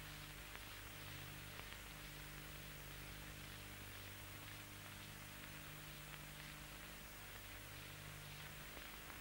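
Faint steady hiss with a low electrical hum, the background noise of an old film soundtrack copied to VHS tape; no sound of the work on screen is heard.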